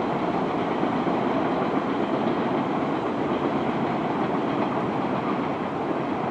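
MBTA Orange Line subway train running on surface tracks, a steady, even rolling noise of wheels on rail.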